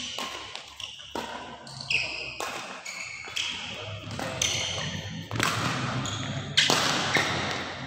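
Badminton rally: rackets striking a shuttlecock with sharp cracks every second or so, among short high squeaks of shoes on the court floor, echoing in a large hall.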